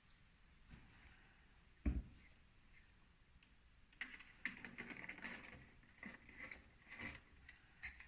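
Faint clicks and rustles from handling plastic bottles and a container of diluted dish detergent, with a single knock about two seconds in.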